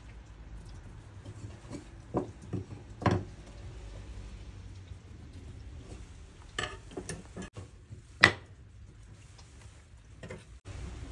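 Scattered knocks and clatters of wooden workpieces and tools being handled on a workbench, in small groups, the loudest a single sharp knock about eight seconds in, over a faint low hum.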